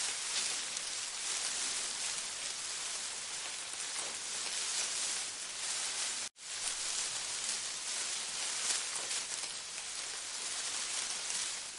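Steady hiss of rain-like noise. It cuts out sharply for a moment a little past halfway, then resumes unchanged.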